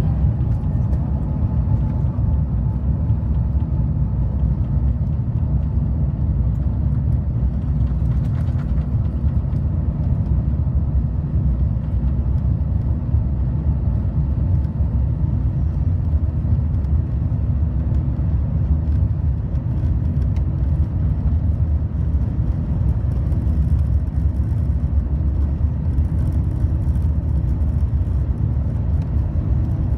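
Cabin noise of an Airbus A350-900 moving on the ground or rolling, with its Rolls-Royce Trent XWB engines running: a steady, loud low rumble and whir. An engine whine that has just risen levels off and fades within the first few seconds.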